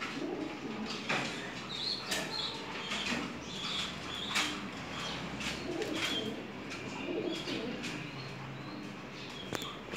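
Birds chirping with short high notes and a pigeon or dove cooing, mixed with scattered sharp taps and knocks close by.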